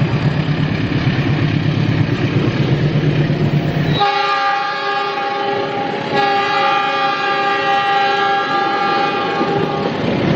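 A passenger train rumbling past. About four seconds in, the diesel locomotive's multi-tone horn sounds a short blast and then a long, steady one that stops just before the end.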